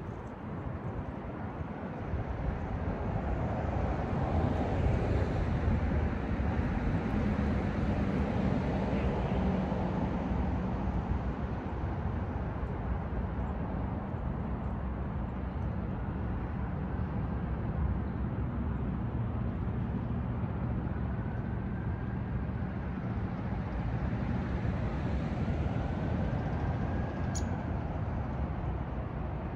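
Steady rumble of road traffic, growing louder about two seconds in. A faint rising and falling siren wail begins in the distance near the end.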